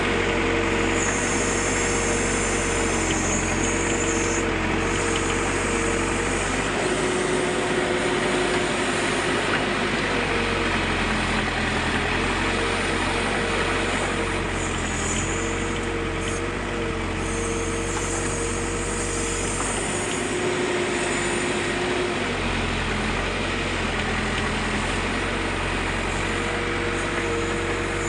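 Backhoe loader's diesel engine running steadily while digging, with a pitched whine that steps up and down as the machine works.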